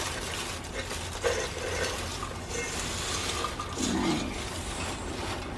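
Dried bread cubes poured from a metal bowl into a pot of simmering chicken stock, falling into the liquid with a continuous wet, splashy noise.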